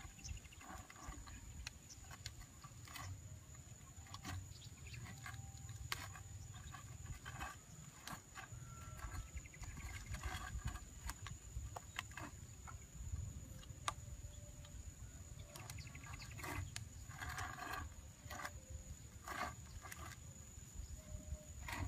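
Outdoor ambience: a low rumble with scattered small clicks and knocks from handling, a steady high whine and a few brief chirps.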